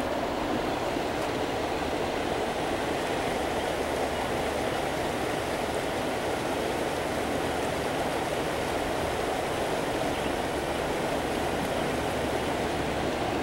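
Steady rush of creek water spilling over a low dam and churning below it.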